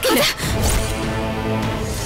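Dramatic background music: a sudden hit right at the start, then held, sustained chords.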